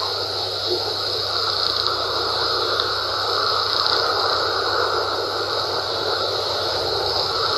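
Steady background noise: a constant hiss with a low hum underneath, unchanging and without distinct clicks or other events.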